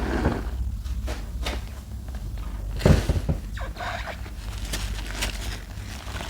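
A sponge being worked into thick soap lather: scattered wet clicks and crackles, with one louder thud about three seconds in.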